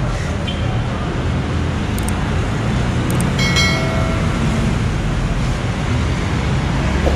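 Busy city street traffic: jeepney, car and motorcycle engines running close by in a steady rumble. A brief high-pitched tone sounds a little past halfway.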